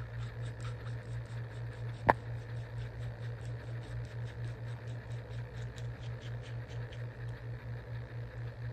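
A steady low hum that pulses evenly several times a second, with a single sharp click about two seconds in.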